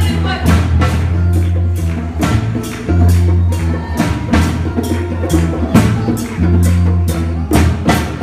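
Upbeat church praise-band music: a drum kit keeping a steady quick beat, about three hits a second, over a bass line.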